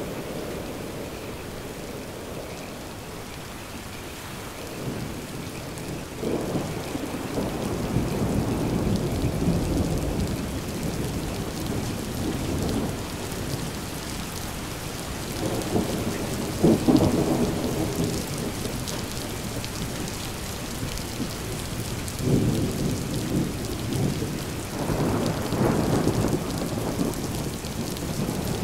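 Steady rain with thunder rolling in three long low rumbles, the loudest about halfway through.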